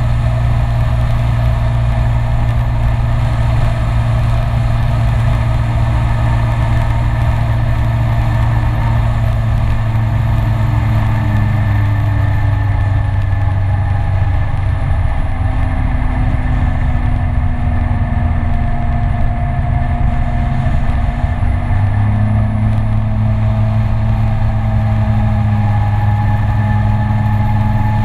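Peugeot Citycom 300i scooter's single-cylinder engine running steadily at road speed, with wind rushing over the microphone. The engine note shifts slightly near the middle as the scooter takes a curve.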